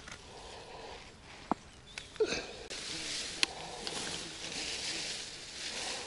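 Hand rustling through grass and wild strawberry plants while picking berries, with a few sharp light clicks; from about three seconds in the rustling becomes louder and steadier.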